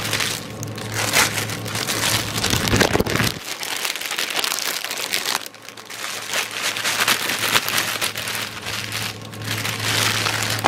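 Packaging crinkling and rustling as a diamond painting kit is handled and unwrapped, a continuous irregular crackle with a brief lull about halfway through.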